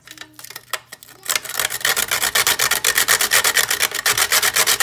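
A dried wooden stick rasped rapidly back and forth on a stainless steel box grater. There are a few scattered scrapes at first, then fast, steady grating strokes from about a second in.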